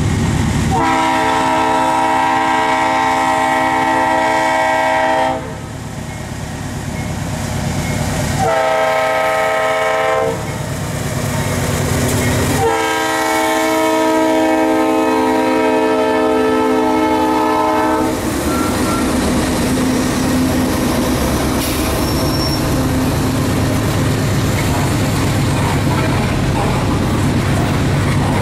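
Leslie RS3L three-chime air horn on a CN GE C40-8W locomotive sounding a long blast, a short one and another long one, the crossing-signal pattern. After the horn stops, the locomotives and covered hoppers roll past with a steady rumble and the clickety-clack of wheels on the rail joints.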